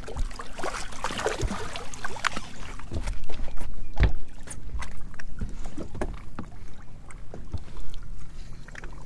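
Choppy water lapping and splashing against a bass boat's hull, with scattered short splashes and knocks.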